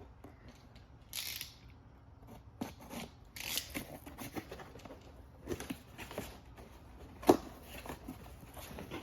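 A cardboard tool box being opened by hand: scattered cuts, scrapes and rustles at the packaging, with a sharp knock about seven seconds in.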